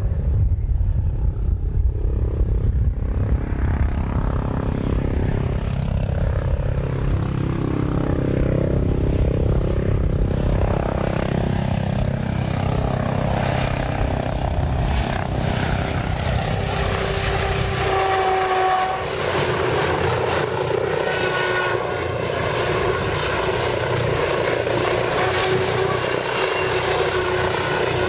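Helicopter rotor and turbine engine, with heavy low rotor beat for most of the first two thirds. About 18 seconds in the low beat drops away, leaving a turbine whine with several steady higher tones over a hiss.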